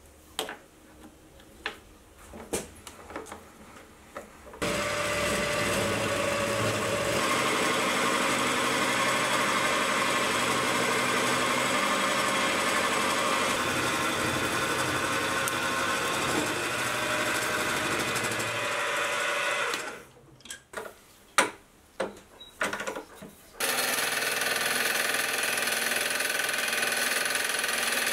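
Benchtop milling machine cutting a low-carbon steel block held in the vise: a steady, loud run of spindle and cutting noise. A few sharp handling knocks and clicks come before it, and again about 20 seconds in, after which the mill runs steadily again.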